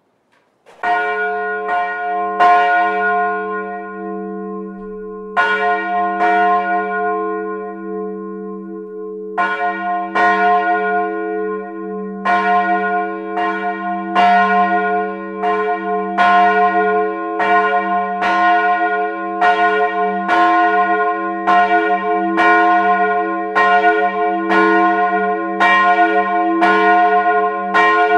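Large bronze church bell with strike tone f', cast in 1899 by M. & O. Ohlsson of Lübeck and 110 cm across, swinging and ringing, heard from inside the belfry. The first clapper strikes come unevenly with long gaps, then settle to about one a second, each leaving a long low hum ringing under the next.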